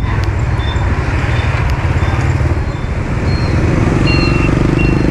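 Road and wind noise from riding a Honda Vision scooter in city traffic. Short, evenly spaced beeps sound throughout and change to a lower pitch about three seconds in.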